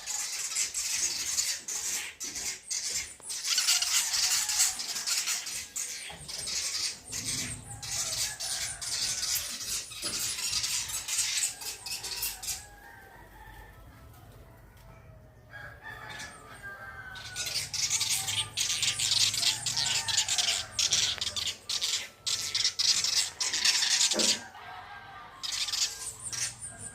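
Birds calling over loud, clicky scratching and rustling. The scratching stops for a few seconds about halfway through, leaving the calls more exposed.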